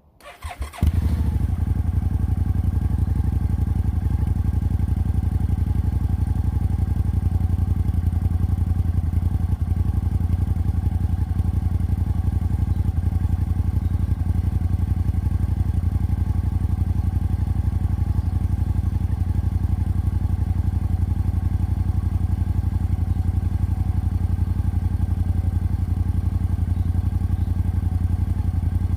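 Suzuki Gladius's 645 cc V-twin on a cold start: the starter cranks briefly and the engine catches within about a second, then idles steadily.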